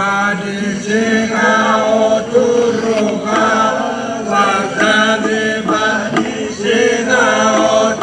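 A group of men chanting together in a traditional Fijian ceremonial chant: a low note held underneath while other voices move above it, in phrases that break briefly about three seconds in and again a little past six seconds.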